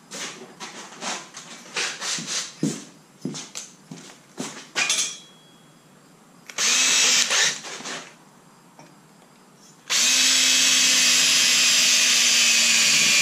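A run of knocks and clatter as tools are handled, then a brief spin of a cordless drill about 7 s in. From about 10 s the drill runs steadily under load, its pitch slowly falling as the bit cuts into the aluminum frame.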